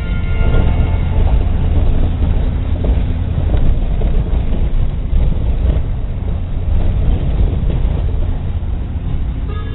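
A car driving on an unpaved dirt road, heard from inside the cabin: a steady low rumble of the engine and tyres on the rough surface.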